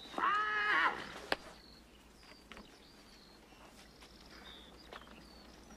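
A horse whinnies once at the start, a short call of under a second, followed by a single sharp click and then faint, short high chirps.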